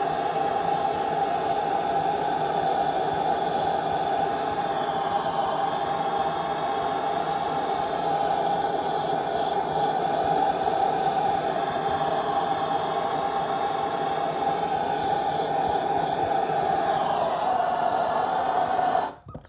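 Handheld gas torch flame burning steadily, a constant hiss with a strong steady tone in it, heating gold-filled scrap red hot to burn off organics. It shuts off suddenly near the end.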